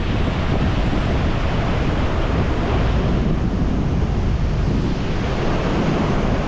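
Strong wind buffeting the microphone, over the steady rush of ocean surf.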